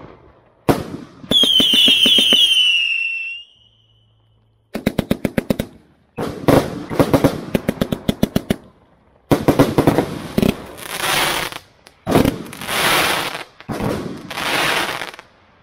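80-shot 25mm firework cake firing in quick volleys of shots, about eight a second, with a whistle about a second in that falls in pitch over some two seconds. It ends with three long hissing bursts of crackle, each about a second.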